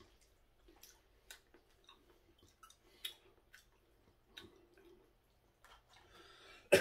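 Soft chewing of noodles, with scattered light clicks of wooden chopsticks against a plastic takeout bowl. A sudden loud burst comes just before the end.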